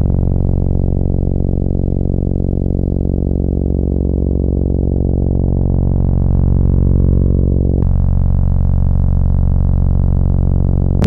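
Korg EX-800 synthesizer holding one long, low bass note rich in overtones. About eight seconds in its upper overtones abruptly thin out, and at the very end a new bass note strikes with a sharp attack.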